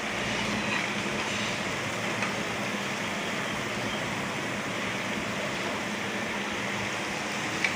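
Balls of semolina-and-curd batter deep-frying in hot oil: a steady sizzle, with one light click near the end.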